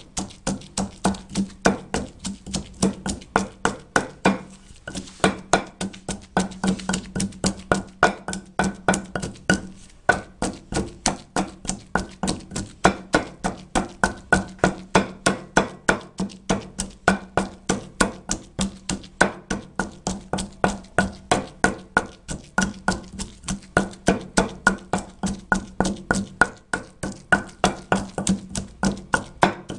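Wooden pestle pounding a wet paste of green chillies, mint and coriander in a heavy stone mortar: a steady rhythm of dull knocks, about three a second.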